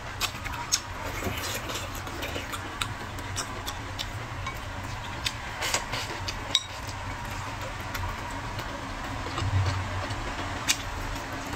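Close-up eating sounds: chewing and wet mouth noises, with scattered sharp clicks of wooden chopsticks against a ceramic bowl. A steady low hum runs underneath.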